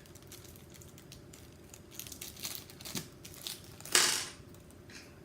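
Small plastic bag of screws being handled and opened: light crinkling and clicks, then one loud, sharp clatter about four seconds in.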